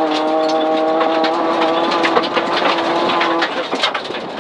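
Rally-prepared 2004 Mitsubishi Lancer's engine running under load, heard inside the cabin with a nearly steady note, while gravel clicks and pings against the car. About three and a half seconds in, the engine note drops away, leaving the gravel rattle and road noise.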